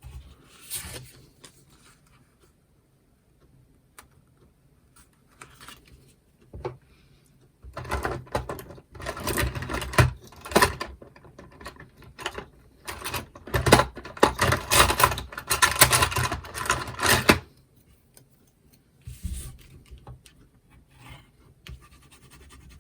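Card stock being handled on a craft desk: paper scratching and scraping with small knocks, busiest for about ten seconds in the middle, quieter at the start and the end.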